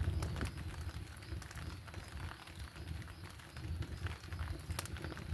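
Campfire crackling with scattered sharp pops, over an uneven low rumble.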